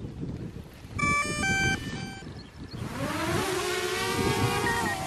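DJI Mavic Air quadcopter starting up: a short run of electronic beeps, then its motors spin up with a rising whine and settle into a steady propeller buzz as it lifts off.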